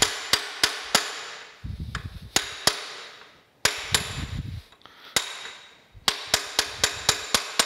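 A small hand hammer taps the steel pivot block and pin inside a cast iron stoker engine crankcase, knocking loose a pin that is rusted in place. The sharp, ringing metal taps come in short runs, with two brief low rumbles in the middle and a quick run of about five taps a second near the end.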